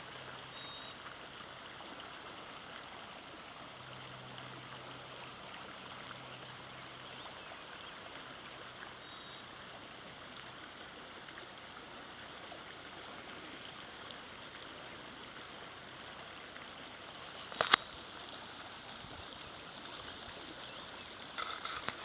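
Small brook trickling steadily, with one sharp click about three-quarters of the way through.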